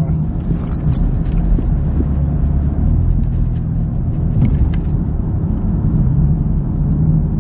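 Steady low rumble of a car's engine and road noise, heard from inside the cabin while the car drives, with a few faint clicks.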